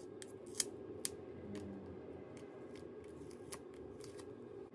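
Faint, scattered small clicks and ticks of hands and tweezers handling a laptop's new display and its ribbon cables inside the open chassis, over quiet room tone; the clearest two come about half a second and a second in.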